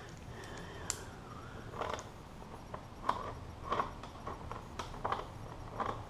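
Scattered small clicks and short rustles of hand work on a motorcycle's front end: a small hand tool, wiring and fairing parts being handled, at irregular moments over a low steady hum.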